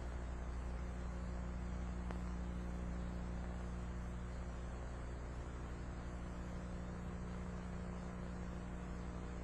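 Steady electrical hum with an even hiss underneath, typical of an old 1990s tape recording, with one faint tick about two seconds in.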